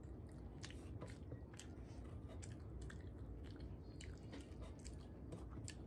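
Soft chewing with many short, wet mouth clicks and smacks as a person eats rice and curry by hand and licks her fingers.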